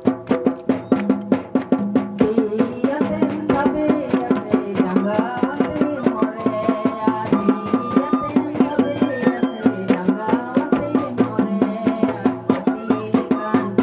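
Sohrai folk dance music: a quick, even drumbeat with a melody line running over it.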